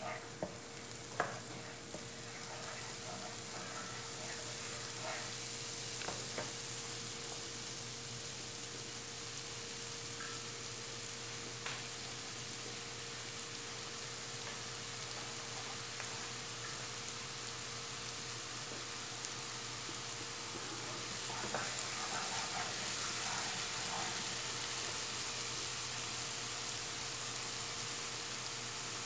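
Garlic-ginger paste sizzling steadily in hot oil in a non-stick pan, with a few taps and scrapes of a wooden spoon stirring it in the first several seconds.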